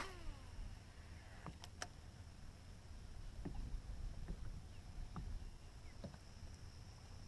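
Baitcasting reel on a cast: a click and a short falling whine as the spool spins down, then scattered light clicks and ticks over a faint low rumble of wind and water.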